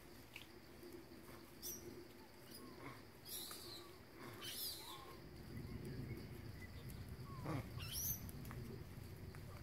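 Faint forest ambience with a few scattered short, high chirping calls over a steady low hum; a low rumble swells from about halfway through.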